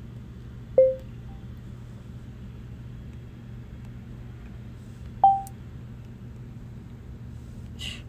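Two short electronic chimes from an iPhone's keyboard dictation: a lower one about a second in as dictation starts, and a higher one about five seconds in as it stops. A steady low hum runs underneath.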